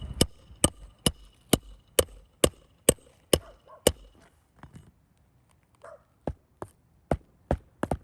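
Hand hammer driving roofing nails: sharp, ringing blows about two a second, some nine in a row, then a pause of about two seconds and a second run of strikes near the end.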